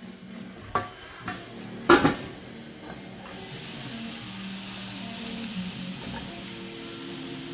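A few metal taps and a loud clank of a steel pan lid about two seconds in, then sausages sizzling steadily in a frying pan on a gas stove.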